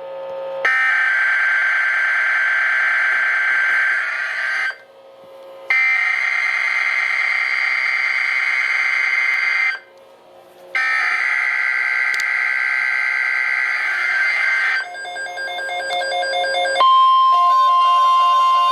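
Emergency Alert System SAME header: three bursts of digital data tones, each about four seconds long with a second's gap between them. This marks the start of a tornado watch alert. After a short stretch of other tones near the end, a single steady NOAA Weather Radio attention tone begins.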